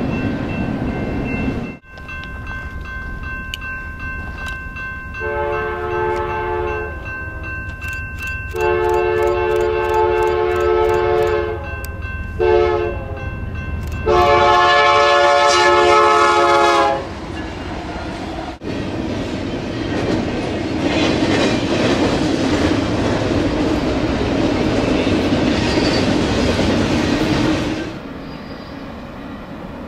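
Diesel freight locomotive's air horn sounding the grade-crossing pattern: two long blasts, a short one, and a final long, loudest blast. Then the intermodal freight cars rumble and clatter steadily past on the rails.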